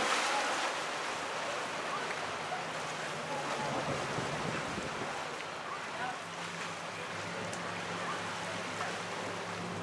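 Wind buffeting the microphone over the wash of open water. A faint, steady low motor hum comes in about six seconds in.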